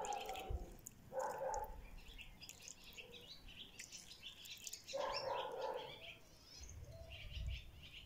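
Small birds chirping repeatedly, over three short mid-pitched meows from a domestic cat: one at the start, one about a second in and one about five seconds in.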